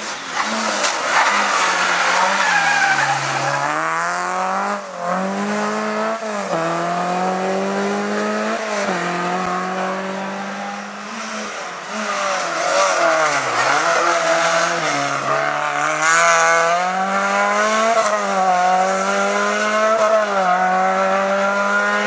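Hillclimb race car's engine run hard up the course, its pitch climbing through each gear and dropping sharply at each shift, again and again. It twice falls away and climbs back as the car slows for a bend and accelerates out.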